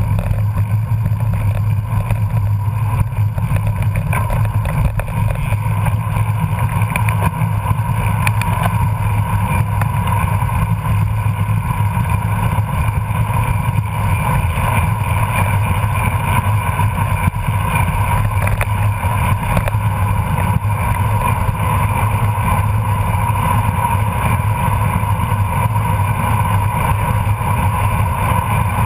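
Steady wind rush and road noise on a bicycle-mounted camera's microphone as a road bike rides along pavement and picks up speed.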